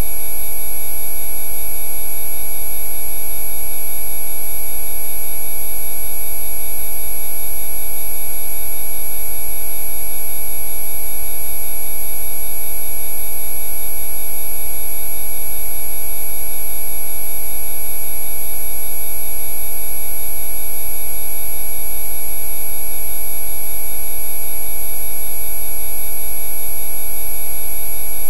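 Synthesized Rife-frequency tone track: many pure electronic tones sounding together as a loud, steady hum that does not change.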